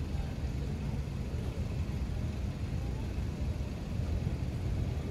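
Steady low rumble of outdoor background noise, flickering and uneven, with no distinct events.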